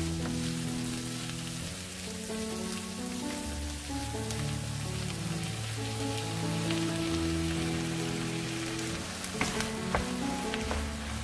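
Sliced onions sizzling in a hot frying pan, a steady hiss, with a few sharp clicks from the wooden spatula about nine seconds in. Background music with long held notes plays underneath.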